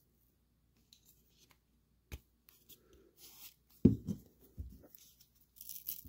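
A wooden dowel pushes a nitro card down into a plastic 12 gauge shotgun hull onto the black powder charge, with quiet scraping and rubbing of wood on plastic. There is a sharp click about two seconds in and a few dull knocks around four seconds in.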